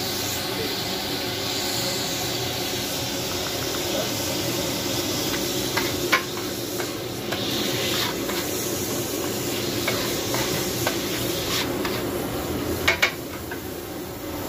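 Chopped boiled chicken sizzling on a hot tawa griddle, with steam hissing off the surface. A metal spatula scrapes and clacks against the griddle now and then, with two sharp clacks near the end.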